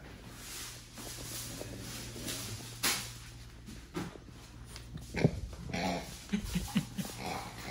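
French bulldog puppy making short grunts while playing, clustered in the second half. Three sharp knocks come before them.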